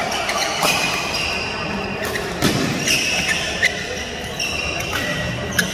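Badminton rally: rackets striking the shuttlecock, six or so sharp hits spaced about half a second to two seconds apart. Shoes squeak on the court mat between the hits, and voices carry in the background.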